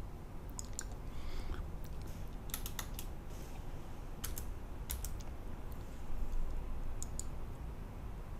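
Computer keyboard keystrokes in short, irregular groups, a few keys at a time, as a short field name is typed, over a low steady hum.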